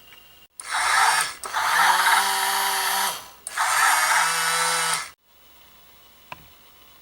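The small electric motor and plastic gearbox of a Dickie Toys motorised dump truck whirring in three bursts. Each burst rises in pitch as it spins up and falls as it stops. A single click follows near the end.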